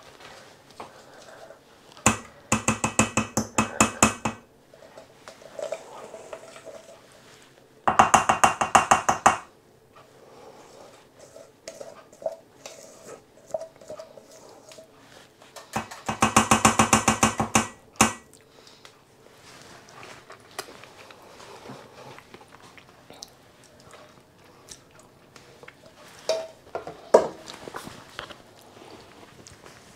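Metal cake tins full of batter rattled rapidly against a granite worktop in three bursts of a second or two each, settling and levelling the batter. Scattered light clicks and knocks come between the bursts.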